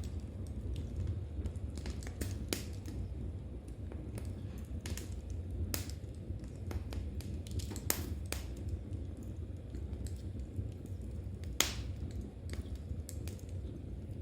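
Wood fire in a fireplace crackling: irregular sharp pops over a low steady rumble, with knitting needles and yarn working alongside.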